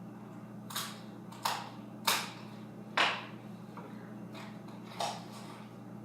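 Scissors cutting open a baking soda package: five short, sharp snips at uneven intervals, the loudest two near the middle. A steady low hum runs underneath.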